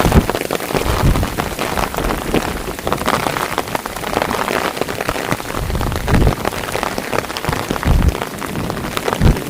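Heavy thunderstorm rain pouring steadily, with a few brief low thumps mixed in.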